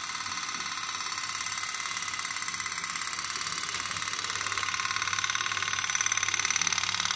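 Tin pop-pop (putt-putt) toy steam boat running in a basin of water, its heated boiler making a rapid, steady putt-putt pulse like a tiny motorboat engine. It grows a little louder toward the end.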